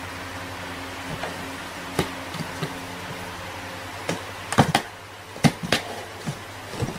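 Cats moving on and inside a cardboard box: a scatter of short knocks and scratchy taps on the cardboard, one about two seconds in and a cluster from about four seconds on, over a steady low hum.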